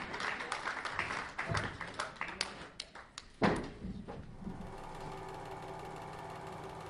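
Audience applause dying away into scattered claps, then one loud thump about three and a half seconds in, followed by a steady faint hum.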